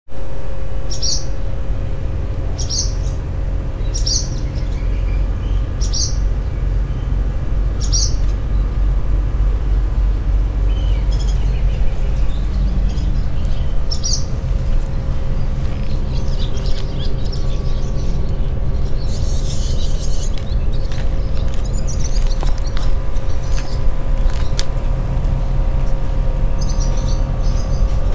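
Barn swallows giving sharp alarm calls, single calls every second or two at first, then bursts of twittering, as the adults mob a cat below their nest of chicks. A steady low rumble with a faint constant hum runs underneath.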